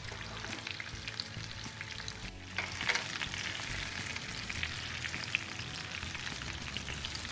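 Marinated fish pieces shallow-frying in hot oil in a pan: a steady sizzle with crackling spits of oil. A short dip comes about two seconds in, followed by a slightly louder spell of crackling.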